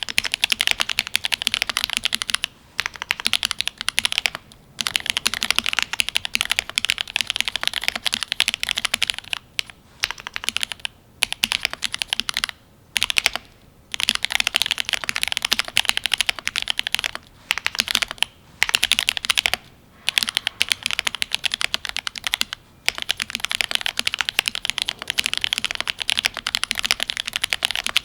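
Fast typing on a Cyberboard R3 mechanical keyboard with an aluminium plate, GMK keycaps and lubed Gateron Ink Black linear switches: rapid keystrokes in runs of a few seconds, broken by brief pauses.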